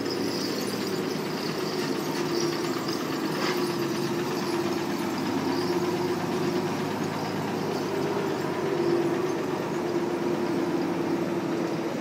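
Hino dump truck's diesel engine running at low speed as the truck rolls slowly past, a steady drone that swells slightly now and then.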